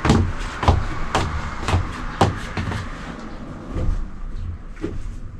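Repeated sharp knocks, about two a second for the first three seconds, then a few more spaced further apart.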